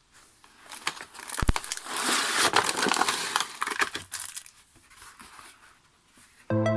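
Small plastic bags crinkling and rustling, with a few light clicks, as bagged fridge magnets are handled and put into a basket. Background music comes in near the end.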